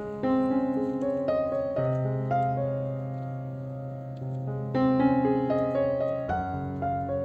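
Background piano music: a slow melody of single notes over sustained low chords.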